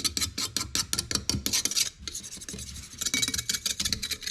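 Quick, repeated scraping strokes as gunk is scraped out from behind a removed part of a chainsaw: about four or five strokes a second at first, then a denser run of scratching.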